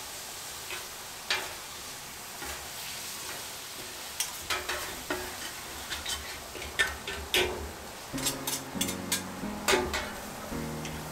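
Scallops sizzling on a hot flat-top griddle while a metal spatula and fork flip and scrape them. The taps and scrapes of steel on the griddle start about four seconds in and grow busier.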